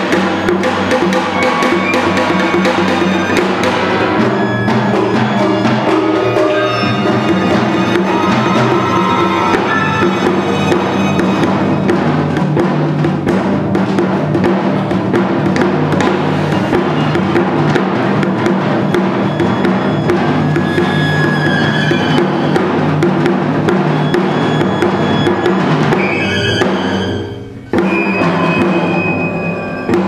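Janggu, the Korean hourglass drum, struck with sticks in a dense stream of rapid strokes against a chamber ensemble of strings and winds holding sustained chords. Near the end the music drops away briefly, then the full ensemble comes back in abruptly.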